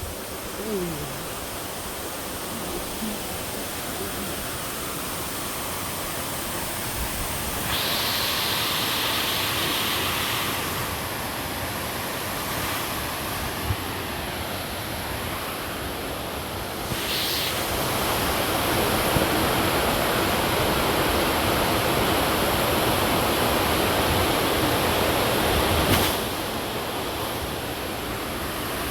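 Waterfall rushing in a steady roar of falling water. It grows louder about eight seconds in and again for a stretch from about eighteen seconds.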